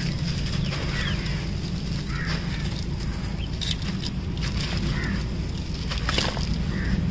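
Dry, gritty sand-and-gravel mixture being crushed and crumbled by hand in a steel pot: a steady sandy rustle with a few sharp clicks of pebbles, over a steady low rumble.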